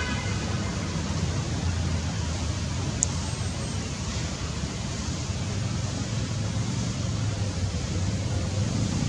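Steady outdoor background noise: an even hiss over a low rumble, with a single short click about three seconds in.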